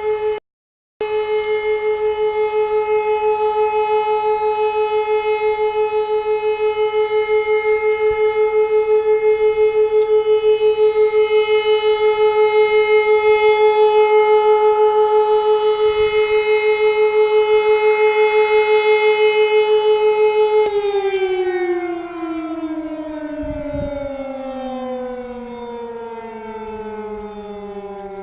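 Alarm siren holding one steady, loud tone for about twenty seconds, cut off for a moment just after it starts; near the end it winds down, its pitch sliding slowly lower as it fades.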